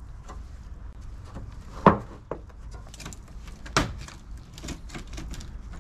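Rotten wood framing around a stripped trailer's window opening being pulled and knocked at by a gloved hand: two sharp knocks about two seconds apart, with lighter clicks and crackles of loose wood between them.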